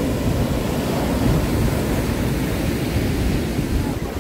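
Sea surf washing on a sandy beach, a steady rush, with wind rumbling on the microphone.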